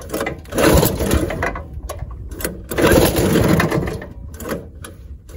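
Small single-cylinder gasoline engine of a wooden fishing boat running, under a steady low rumble. Two loud bursts of rushing noise, each about a second long, come over it, one near the start and one near the middle.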